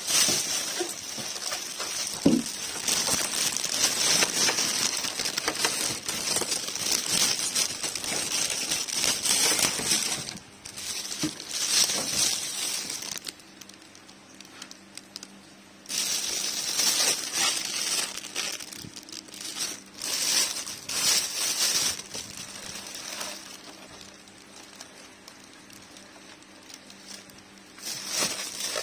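Plastic bag wrapping crinkling and rustling in irregular stretches as a packed fan motor housing is handled and unwrapped. It goes quieter for a few seconds around the middle and again near the end.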